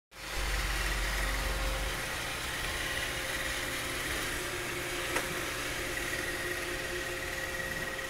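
iRobot Roomba robot vacuum running across a hardwood floor: a steady hum of its vacuum and brush motors with a high whine, and a single sharp click about five seconds in.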